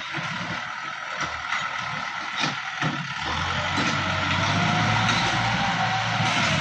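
Kubota M6240 tractor's diesel engine working as the tractor pushes soil with its front blade. It gets louder about three seconds in, and a whining tone rises and then falls near the end.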